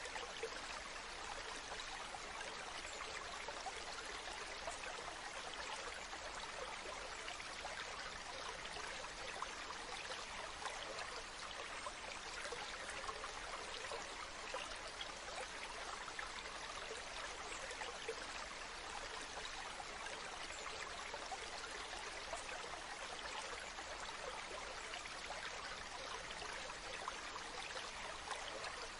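Waterfall: steady rushing and splashing water.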